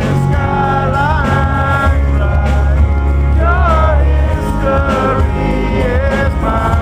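Live rock band playing loud: guitars, bass and drums with a heavy low end, and a melody line that bends up and down above them.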